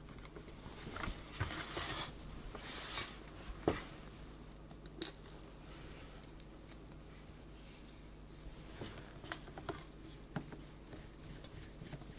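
Scattered light clicks, taps and rustles of a screwdriver and small screws being worked into a plastic CD drive housing, with hands handling the unit.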